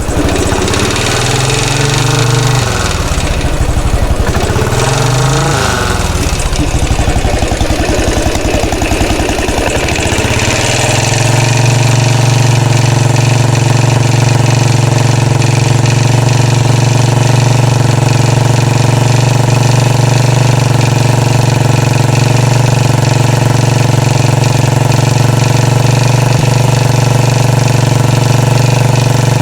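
2013 Royal Enfield Classic 500's single-cylinder engine running. The revs rise and fall twice in the first few seconds, and about ten seconds in it settles to a steady idle of around 900 rpm.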